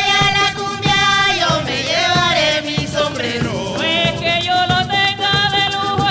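Live Panamanian folk music: voices singing held, wavering notes over a steady beat of hand drums.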